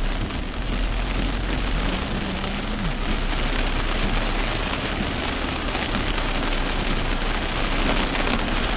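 Heavy rain falling steadily on a car's roof and windshield, heard from inside the moving car over a constant low road rumble.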